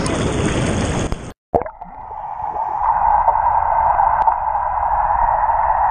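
Churning, bubbling pool water right at the microphone, cut off suddenly about a second and a half in. After that comes a steady, muffled rush of water heard from underwater.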